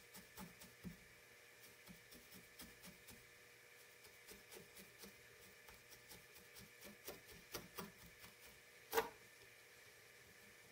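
Felting needle stabbing repeatedly through loose wool into a felting pad: faint soft punches about three a second, with one sharper click near the end.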